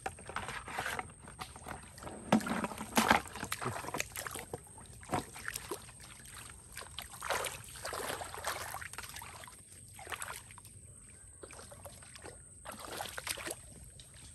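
Irregular splashing and sloshing of shallow, muddy mangrove water as people wade and a crab hook is swept through it, loudest a couple of seconds in.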